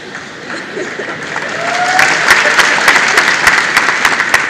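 Live theatre audience applauding, the clapping swelling about a second and a half in and staying strong.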